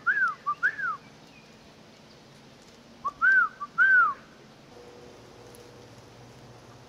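A whistled call heard twice, about three seconds apart. Each phrase is a short low note followed by two clear notes that rise and fall.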